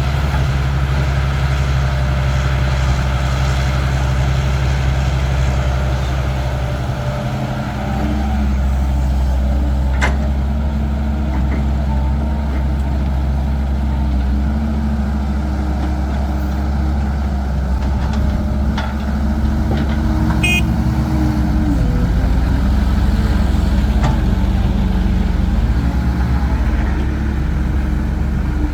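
Heavy diesel engines of a Caterpillar 312 excavator and a dump truck running steadily while earth is loaded, with a few sharp knocks scattered through.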